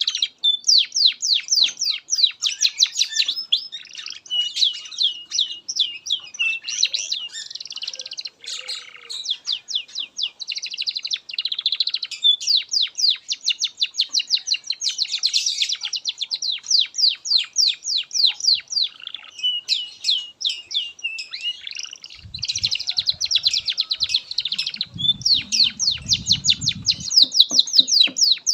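Domestic canary singing a long, unbroken song of rapid rolling trills and runs of fast repeated high notes, changing from one trill phrase to the next with hardly a pause.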